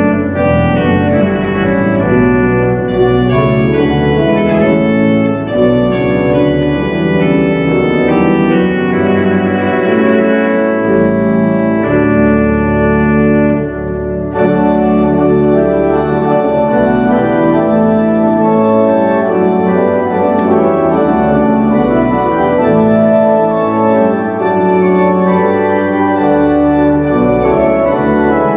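Church organ playing a hymn in full, sustained chords on the manuals with a deep pedal bass line underneath. A brief break between phrases falls about halfway through.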